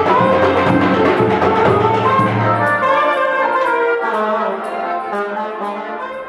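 Brass instruments playing music, several notes at once, growing quieter over the last few seconds.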